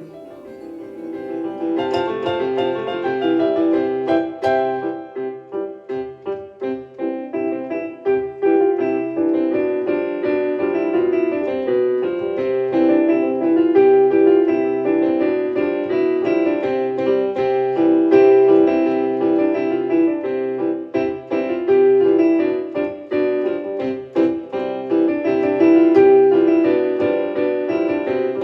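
Background piano music, a run of struck notes.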